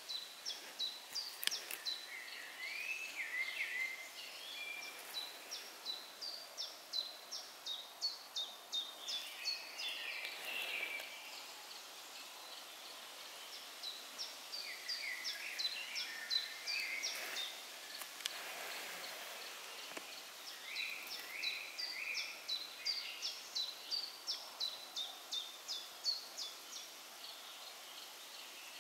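Songbirds singing in woodland. Several runs of rapid, evenly repeated high thin notes, about three to four a second, come and go, with shorter, lower chirping phrases between them.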